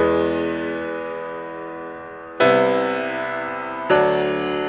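Background piano music: slow chords, three struck in turn, each left to ring and fade.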